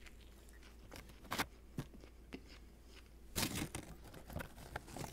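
Mouth sounds of chewing a bite of toasted sub sandwich: scattered sharp crunches and crackles, with a louder cluster about three and a half seconds in.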